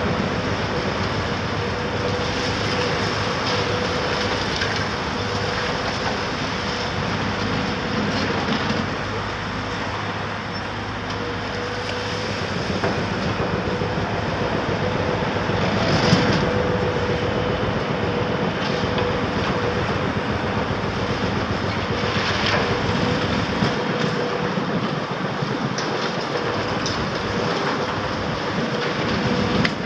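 Caterpillar 374F large excavator working on a demolition: a steady engine drone with a thin constant whine, over continuous crunching and clattering of broken building material. Two louder crashes come a little past the middle.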